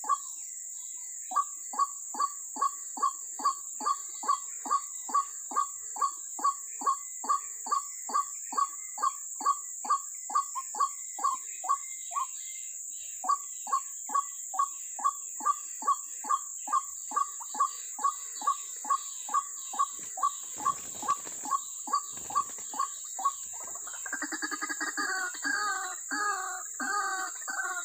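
White-breasted waterhen (ruak-ruak) calls: a long run of evenly spaced notes, about three a second, with one short break. Near the end a louder, fuller run of croaking notes sets in.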